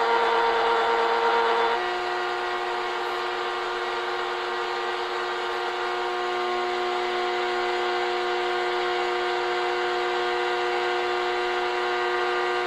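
Shortwave radio receiver giving out static hiss with several steady, droning tones sounding together over it; the tones change about two seconds in and then hold steady.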